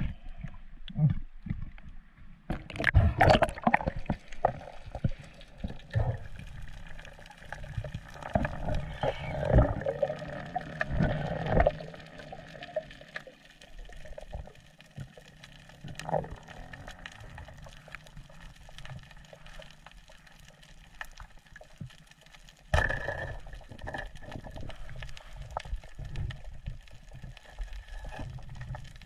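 Water splashing and gurgling against a spearfisher's action camera as he swims at the surface and dives. Loud irregular splashes fill the first dozen seconds, then a quieter underwater stretch, with a sudden louder patch starting about three quarters of the way through.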